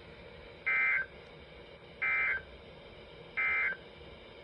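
Three short warbling bursts of SAME data tones, about a second apart, from a NOAA Weather Radio receiver: the end-of-message code that closes an Emergency Alert System warning.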